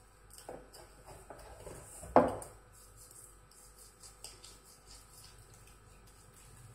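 Hands rubbing a gritty sugar-and-salt scrub together over a stainless steel pot, with light knocks against the pot. About two seconds in, one much louder ringing clang of the steel pot.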